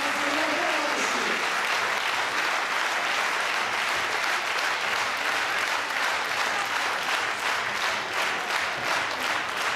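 An audience applauding, a dense, even clapping. Near the end single claps begin to stand out as it thins.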